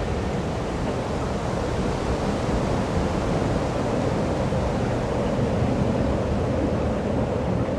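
A steady rushing noise with no clear pitch.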